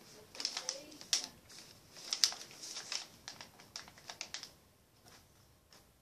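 Pencil scratching and tapping on paper as scores are written down: a quick run of short, sharp strokes that thins out about four and a half seconds in.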